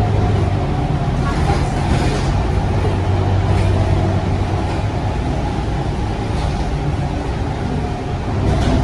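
Scania K230UB bus's rear-mounted diesel engine heard from inside the passenger cabin, a steady low drone with road noise while the bus drives. The drone is strong at first, eases off through the middle and comes back strongly near the end.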